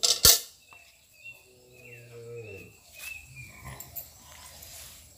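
Two sharp knocks at the very start as the steel milking pail and plastic mug are handled, then a cow moos once, a low call of about a second and a half that falls slightly in pitch.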